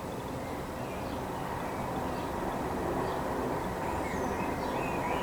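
Steady rumbling background noise with no bell strokes, and a few short high bird chirps about four seconds in.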